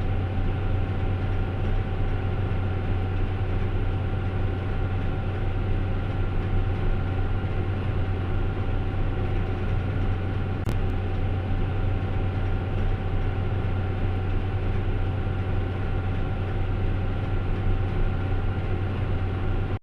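Heavy farm harvesting machinery running steadily: a deep, even engine drone with a faint steady whine above it. A single click comes about eleven seconds in.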